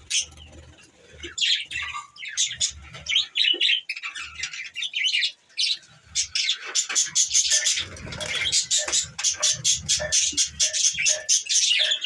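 A flock of budgerigars chirping and chattering: scattered short chirps at first, building into a continuous busy chatter from about halfway through.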